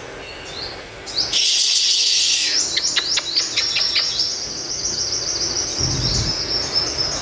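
Caged male sunbird singing: a few short high chirps, then a loud rapid burst of song about a second in, a run of quick sharp notes, and a long high trill.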